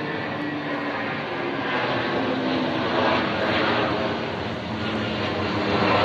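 Engines of a SriLankan Airlines jet airliner running at takeoff power, a loud steady roar that swells slightly about halfway through and again near the end.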